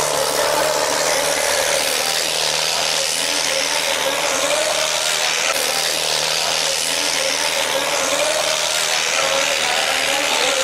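John Deere 5310 tractor's four-cylinder diesel engine running hard under heavy load as it drags a weighted sled through ploughed soil, steady throughout with a slightly wavering pitch.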